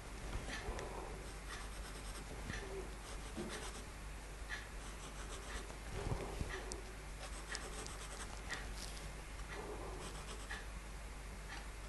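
Faint scratching of a 2B graphite pencil on a paper Zendala tile, in short shading strokes about once a second.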